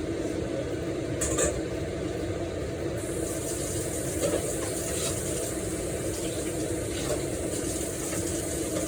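A steady low rushing hum, with a few light knocks and clicks of kitchen work on top.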